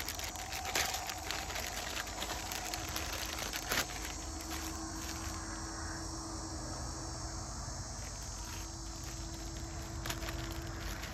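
A clear plastic bag crinkling as a metal tree mount is pulled out of it, for about the first four seconds, then quieter handling of the mount. Insects call steadily in the background.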